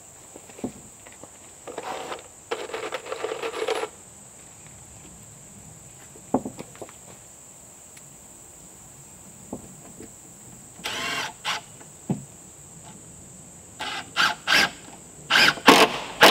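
Cordless drill driving screws into wooden wall sheathing boards. There is a run of about two seconds near the start, a short run later, then several quick pulses near the end, with a few sharp knocks of wood in between.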